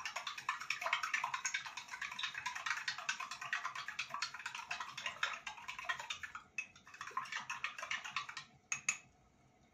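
Flour-and-ghee dough crackling and sizzling in a hot saucepan as water is poured in a little at a time; the crackle dies down about eight and a half seconds in, with a couple of last clicks after.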